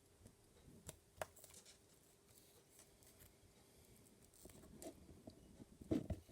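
Faint sharp clicks and small handling noises of hand cutters snipping the cables off a micro servo's small control board: two crisp snips about a second in, then soft fiddling with a few louder clicks near the end.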